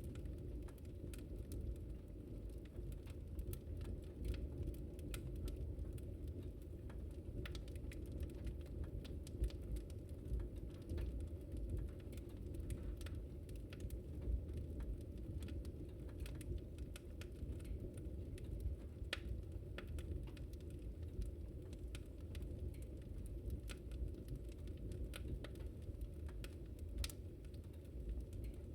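Wood fire crackling: irregular small snaps and pops, a few sharper ones, over a steady low rumble of burning.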